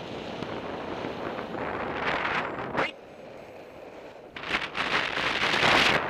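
Airflow from flight rushing over a paraglider pilot's camera microphone, buffeting and gusting. It drops quieter about three seconds in, then surges loud again about a second later.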